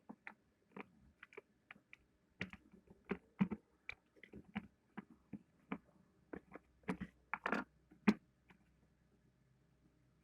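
Irregular small clicks and light knocks of a Makita 6412 drill's parts being handled during disassembly, while the carbon brushes come out.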